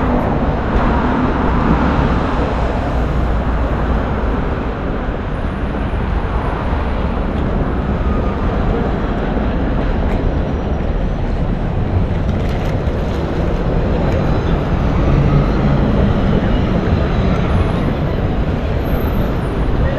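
Busy city street: steady road traffic running past, with indistinct voices of passers-by mixed in.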